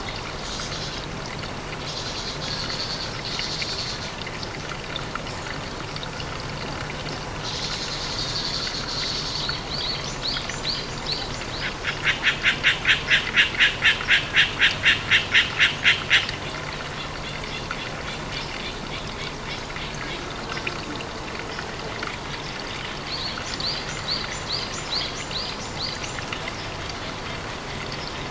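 Outdoor animal calls over a steady background: repeated short high chirps, and about twelve seconds in a loud rhythmic call of about fifteen quick pulses lasting some four seconds.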